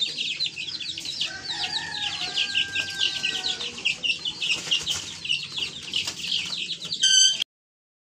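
A crowd of chicken chicks peeping loudly and continuously, a dense stream of short falling chirps. Near the end a brief louder, harsher call stands out, and then the sound cuts off abruptly.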